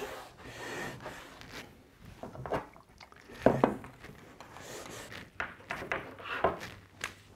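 A cloth rag rubbing along the edge of a white melamine board, then a series of light knocks and taps as the board is handled and set against the tabletop.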